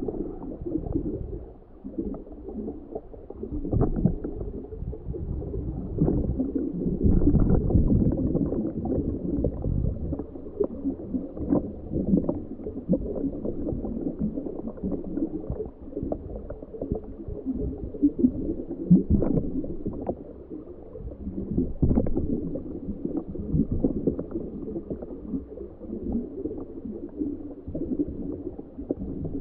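Muffled, uneven underwater gurgling and rumbling, heard through the sealed camera housing of a submerged homebuilt ROV, with a few short knocks.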